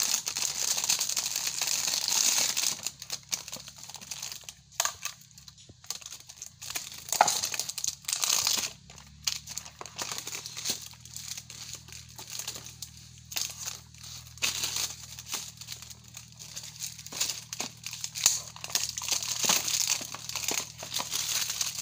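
Plastic packaging crinkling and rustling as a pack is handled and opened. It comes in loud spells near the start and again in the last few seconds, with quieter scattered crackles between.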